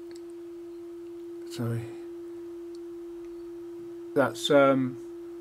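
Pye Black Box transistor amplifier reproducing a steady 350 Hz sine-wave test tone through its speaker, a single pure hum with no wavering.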